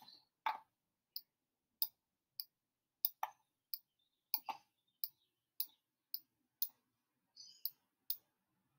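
Computer mouse clicks: about fifteen sharp single clicks at uneven intervals, one or two a second, as short straight lines are placed in a drawing program.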